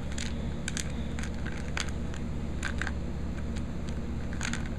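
Handling noise: faint, brief clicks and rustles several times over, over a steady low hum.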